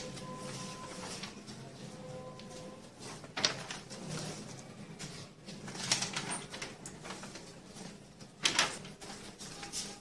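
Paper pages of a paperback textbook being handled and leafed through, with three short louder rustles spaced a few seconds apart.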